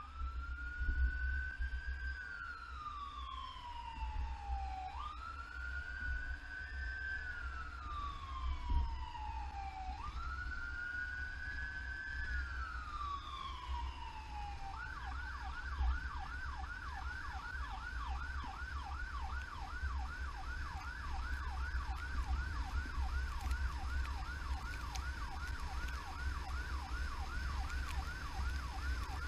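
Emergency vehicle's electronic siren sounding wail: three slow rise-and-fall cycles of about five seconds each. About halfway through it switches to a fast yelp, about three sweeps a second, over a steady low vehicle rumble.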